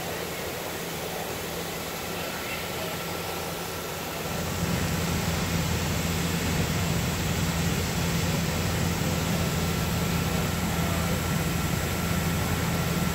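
Fire apparatus engine running steadily at the fire scene, a low drone over a steady hiss, which grows louder and picks up a faint steady whine about four seconds in.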